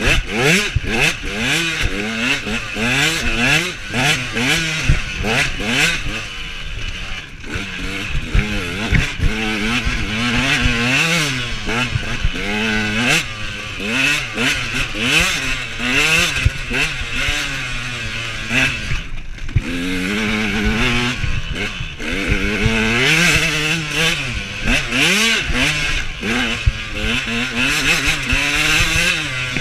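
Husaberg TE125 two-stroke enduro motorcycle ridden hard, the engine revving up and falling back over and over as the rider works the throttle and gears, with frequent knocks and rattles from the bike over rough ground.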